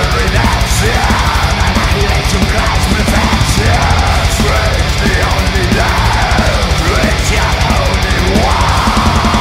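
Heavy metal instrumental passage: rapid double-bass drumming and distorted guitars, with a lead guitar line sliding up and down in pitch.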